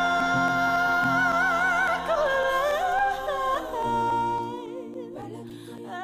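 Background music with a singing voice holding long notes with vibrato over sustained chords; it grows quieter over the last two seconds, fading out.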